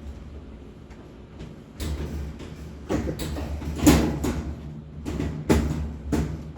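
Top panel of an Amana washing machine being worked back down and latched onto the cabinet: a run of knocks and clunks that starts about two seconds in, the loudest about four seconds in.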